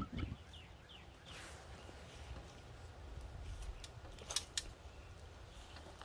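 The propane melting furnace's burner roar cuts off right at the start, leaving quiet outdoor ambience with a few faint bird chirps and two sharp clicks about four and a half seconds in.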